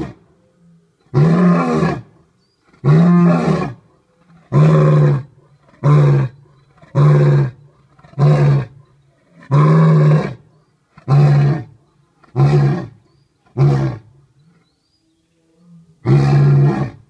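Male lion roaring in a bout: about ten deep roars in a row, each under a second, getting shorter toward the end, then a short pause and one more roar near the end.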